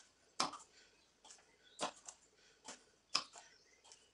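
Plastic plunger cookie cutter pressed down through shortbread dough onto a marble countertop, cutting out shapes: a string of faint, sharp clicks and taps, one or two every second.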